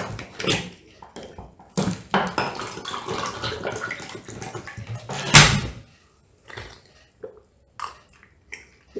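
Water poured from a plastic bottle into a drinking glass, splashing steadily for a few seconds, followed by a loud knock as something is set down on the table. A few faint gulps near the end.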